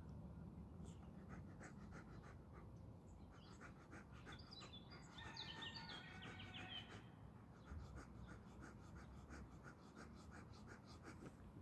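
Boxer dog panting faintly and rapidly in an even rhythm, out of breath after play. A small bird chirps briefly about halfway through.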